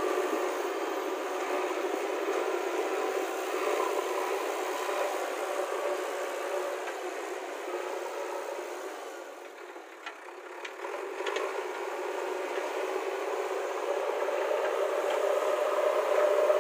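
JCB 3DX backhoe loader's diesel engine running steadily as the machine works loose earth with its front loader bucket. The sound dips a little past the middle and rises again near the end, with a few faint clicks in the dip.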